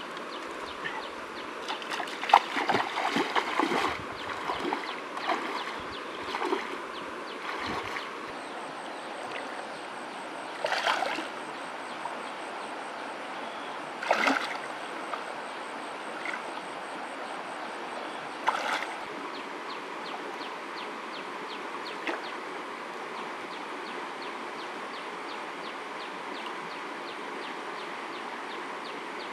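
Shallow river flowing steadily, with splashes from a person wading and running through the water: a cluster in the first few seconds, then a few single splashes.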